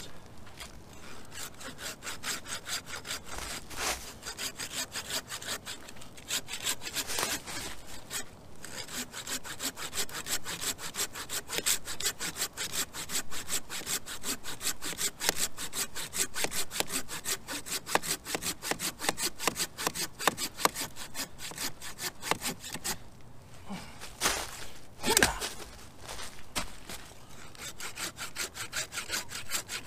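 Curved-blade hand pruning saw cutting through a log, fast and even back-and-forth strokes with the teeth rasping through the wood, broken by a couple of short pauses.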